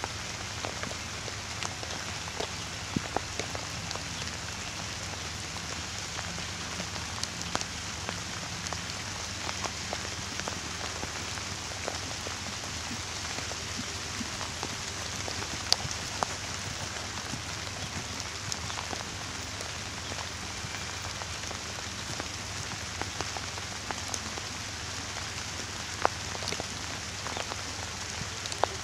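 Steady hiss of rain falling, with scattered sharp ticks of drops hitting close by.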